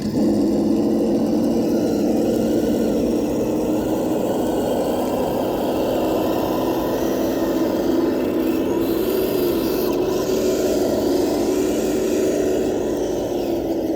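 Kyosho Blizzard radio-controlled snowcat running: a steady whirring drone from its electric motor, gears and tracks, which falls in pitch right at the end.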